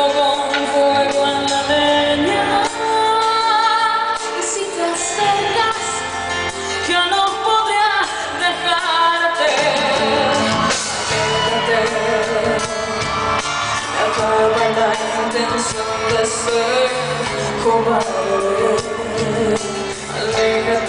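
A woman singing a pop ballad live over a full band of drums, bass, guitar and keyboards, her held notes wavering with vibrato. The drums and bass grow fuller about halfway through.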